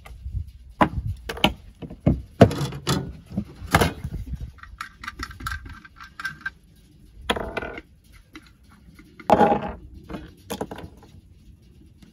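PVC pipe and plastic pipe fittings being handled: an irregular run of clicks, knocks and taps as the plastic parts are turned, fitted together and set down, with a couple of longer rustling scrapes.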